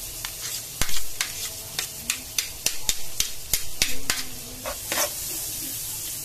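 Chopped garlic sizzling in hot olive oil in a frying pan, with a run of sharp clicks and taps as a metal ladle scrapes the garlic off a plate into the pan. The loudest tap comes about a second in.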